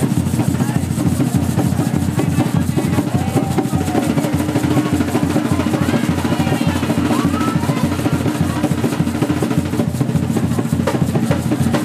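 Several large barrel-shaped hand drums played together in a fast, driving rhythm of rapid strokes, accompanying a street dance.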